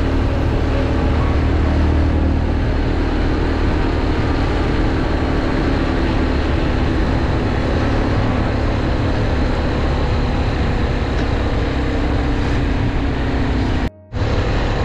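Motorcycle running steadily at road speed, heard through a rider's camera mic along with wind and road rush. The sound cuts out completely for a moment near the end.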